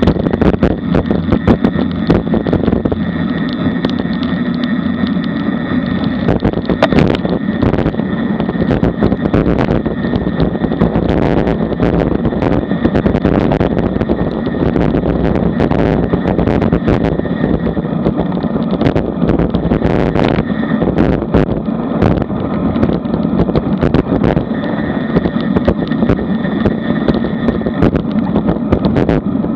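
Wind rushing over a bicycle-mounted action camera's microphone while riding at speed, mixed with tyre and road noise and frequent short knocks and buffets.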